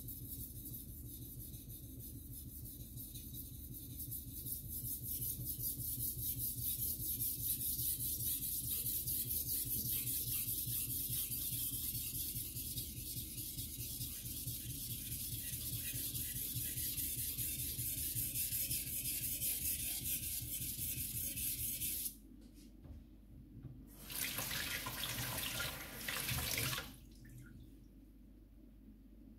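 Water running from a kitchen tap into a stainless steel sink, a steady rushing hiss that grows louder a few seconds in. It cuts off about 22 seconds in, runs again for about three seconds, then stops.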